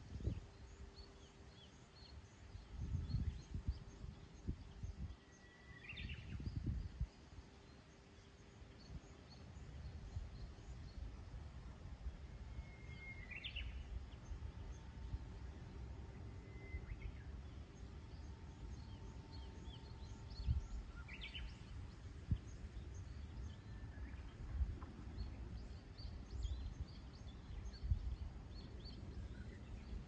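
Wind rumbling on the microphone in gusts, with a few short, high bird calls, about five, heard now and then over a pond.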